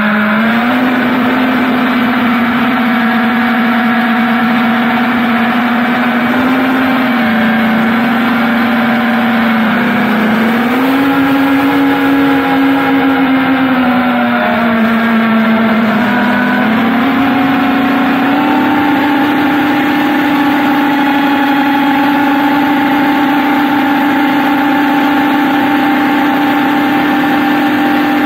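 FPV quadcopter's electric motors and propellers whining. The pitch rises and falls with the throttle, then holds a single higher pitch through the last third.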